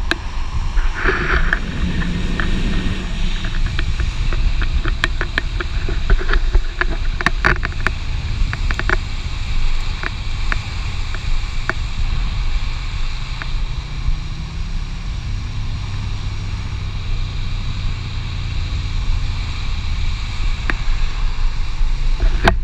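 Wind buffeting the camera microphone and longboard wheels rolling on asphalt at speed down a mountain road, with scattered sharp clicks and ticks from about five to twelve seconds in.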